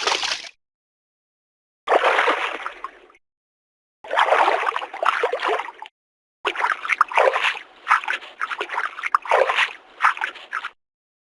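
A run of short sound-effect clips of water sloshing and splashing, each cut off abruptly into dead silence. There are three main clips, and the longest, near the end, holds several quick splashes in a row.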